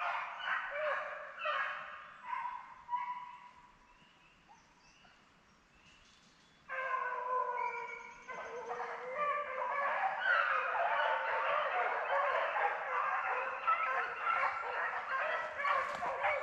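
A pack of beagles baying on a rabbit track, several hounds giving tongue at once. The calls die down to a lull a few seconds in, then break out again suddenly about halfway through and build to a full overlapping chorus.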